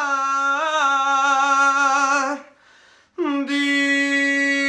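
A man singing a ballad unaccompanied, holding a long, slightly wavering note, breaking off for a short breath, then holding another long note.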